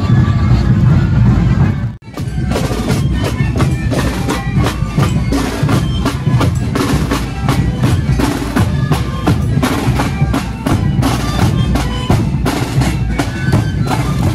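Marching-band drums playing in a street procession: snare drums and a bass drum beating a quick, even rhythm, with short high tones over them. About two seconds in the sound drops out for a moment, then the drumming starts up again.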